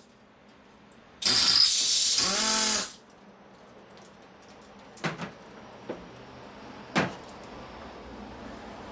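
A loud burst of hissing air lasting about a second and a half, turning into a wavering whistle at its end. It is followed by a few sharp knocks and clunks.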